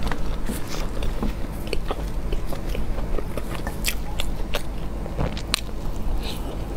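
Close-miked chewing and biting of a soft Chinese steamed bun: scattered wet mouth clicks and smacks at an irregular pace, over a steady low hum.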